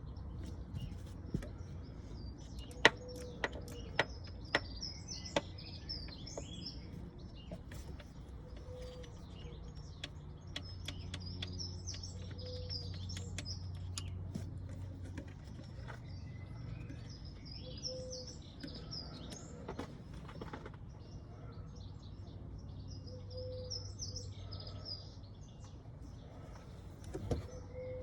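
Small birds chirping and twittering in repeated bursts, with a short low note recurring every five seconds or so. Underneath is a steady low hum, and a few sharp clicks come in the first six seconds.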